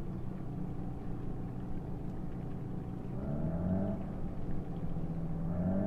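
An engine running with a steady low hum, speeding up twice so that its pitch rises, about three seconds in and again near the end.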